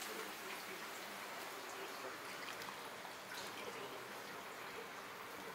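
Steady, even hiss of water boiling hard in a large noodle pot, with a few faint clicks.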